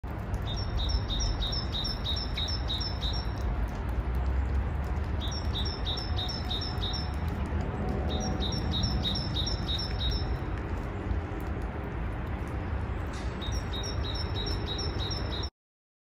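A small songbird singing four phrases of quickly repeated high two-part notes, about four or five a second, with short pauses between phrases, over a steady low rumble.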